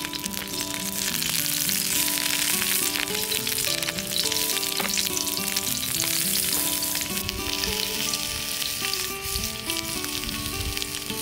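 Sausages sizzling in hot fat in a skillet, a dense hiss that eases a little in the second half. Soft background music with a simple melody plays underneath.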